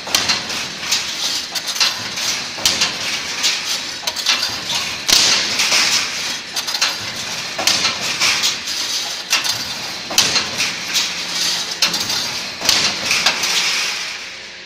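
Automatic welded wire mesh machine running: repeated metallic knocks about once or twice a second as the welding head cycles and the mesh advances, over a steady crackling hiss from the spot welds.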